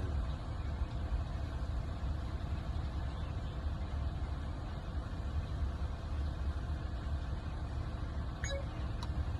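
Steady low rumble of a car engine idling, with a few faint clicks near the end.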